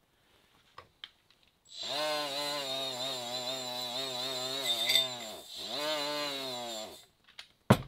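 A small hand-held electric power tool running for about five seconds. About two-thirds of the way through it briefly spins down and back up, then it stops, and a sharp knock follows near the end.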